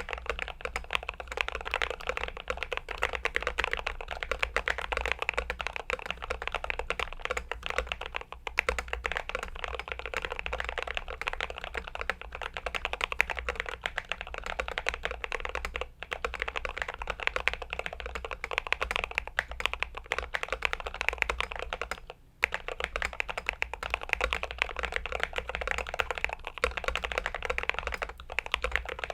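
Continuous fast typing on a Glorious GMMK Pro, an aluminium-cased 75% mechanical keyboard: a dense stream of key clacks, with a brief pause about two-thirds of the way through.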